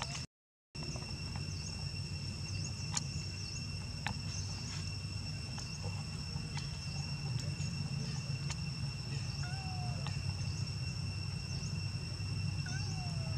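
Steady outdoor insect chorus, crickets or cicadas making a constant high drone, over a low rumble, with scattered faint chirps and clicks. The sound cuts out completely for about half a second near the start.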